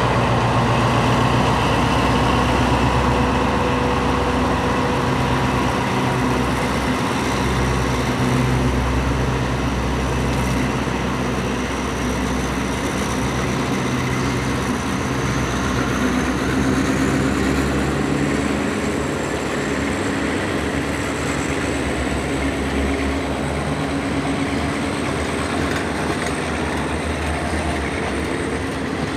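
Pielstick diesel engine of locomotive 4420 running as it hauls a passenger train past. The engine note weakens over the second half while the coaches roll by on the rails.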